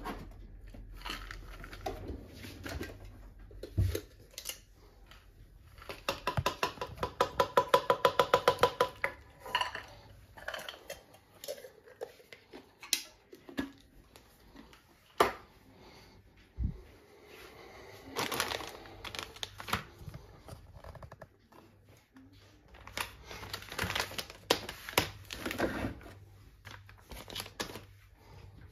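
Kitchen handling noises: scattered clicks, knocks and clatters of things being moved about, with a loud run of rapid clicks lasting about three seconds, beginning about six seconds in.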